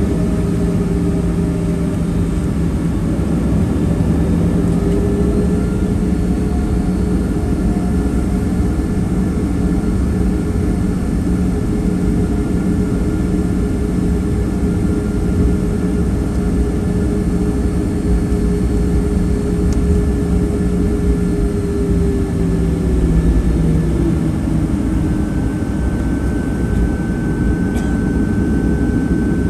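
Boeing 737-800's CFM56-7B turbofan engines running at idle thrust during taxi, heard inside the cabin as a steady hum with a few engine tones. One tone dips slightly in pitch about three-quarters of the way through.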